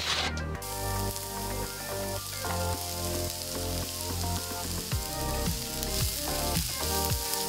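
Chopped bell pepper, onion and carrot sizzling in hot oil in a frying pan while being stirred, with background music.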